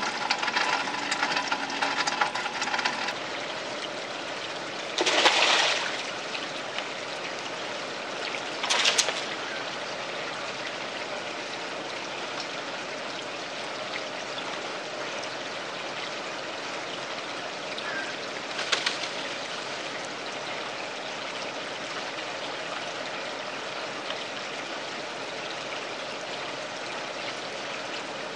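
Steady trickle and splash of running water in a garden pond. A few short loud splashes break through it: the loudest about five seconds in, another near nine seconds and a weaker one near nineteen. The noise is louder, with a hiss, for the first three seconds.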